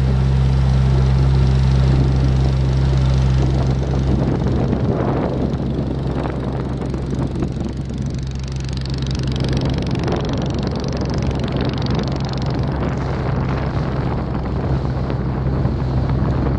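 Boat engine running at a steady pitch. After about four seconds, wind buffeting the microphone grows over it, and the engine hum fades into the rush before coming back faintly near the end.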